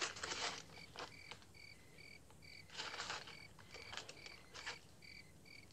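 Faint cricket chirping: short high chirps repeating about two to three times a second, with a few soft rustles.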